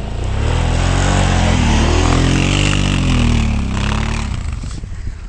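Kawasaki ATV engine revving hard as it pulls away through deep snow, its pitch climbing and then dropping, the sound fading as it moves off.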